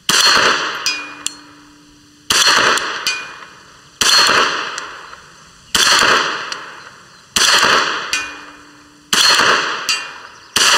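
Seven .22LR shots from a Chiappa M9 pistol, about 1.7 seconds apart, each with a short echoing tail. After several of them a faint, delayed metallic ping follows, the bullet striking the steel gong target 111 m away.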